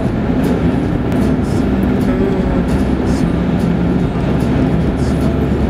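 Steady road noise heard inside the cabin of a moving car: a continuous low rumble of tyres and engine.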